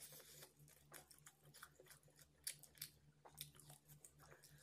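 Faint close-up sounds of a person eating roast chicken with his hands: chewing with a quick run of short wet clicks and lip smacks, and a few sharper ones in the middle.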